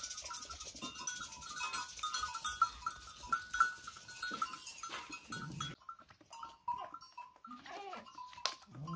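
A flock of sheep and goats moving about on packed earth, with scattered sharp hoof clicks and scuffs and a few short bleats near the end. A high tone comes and goes underneath.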